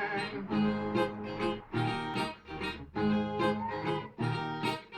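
Brazilian ten-string viola playing alone, plucked and strummed, with a strong bass note repeating about every second.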